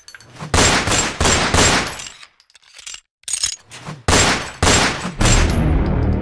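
Two loud volleys of rapid gunfire, a sound effect, about two seconds apart. The second dies away into a low rumble.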